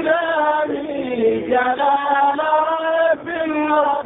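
A voice chanting Islamic religious verses in long held, wavering notes, pausing briefly about three seconds in.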